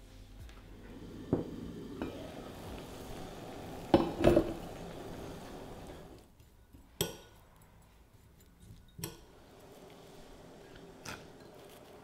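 Bean sprouts being parboiled: a steady hiss of simmering water with a few sharp clinks against the pot, the loudest pair about four seconds in. After a cut, a metal spoon clinks against a ceramic bowl every couple of seconds as the sprouts are mixed with sesame oil.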